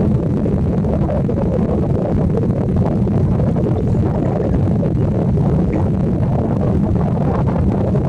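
Steady, loud low rumble with no clear tone and no bird calls standing out.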